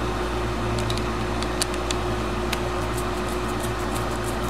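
Light clicks of a screwdriver turning a brass terminal screw on a wall switch, a few at first and then about four a second from about three seconds in, over a steady room hum with a constant tone.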